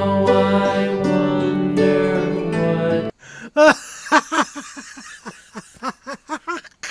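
Background music on plucked-string instruments, which cuts off suddenly about three seconds in; then a fast run of short, high-pitched voice-like sounds, about three or four a second, loudest at their start.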